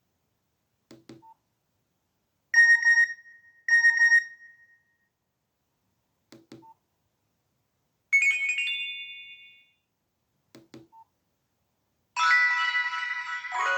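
Nokia 1680 classic mobile phone playing its built-in alert tones through its small loudspeaker, one after another with faint key clicks between them: a double beep, then a short chime that fades out, then a longer multi-note ringtone starting near the end.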